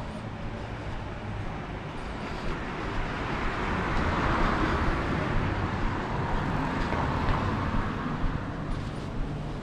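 Road traffic noise from the street beside the sidewalk: a passing car's engine and tyre noise swells about four seconds in and then fades, over a steady low rumble.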